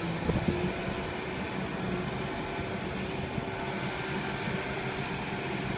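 Diesel engines of two farm tractors, one a red Kubota, running steadily under load as they churn through a flooded paddy field.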